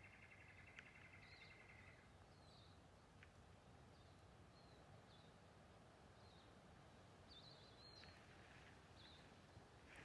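Faint outdoor ambience with small bird chirps, short high calls about once a second. A fast, rattling trill stops about two seconds in.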